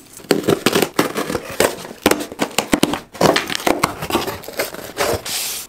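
A mailed package being slit with a key and torn open by hand: irregular scraping, ripping and crinkling of the packaging, with a longer rasp near the end.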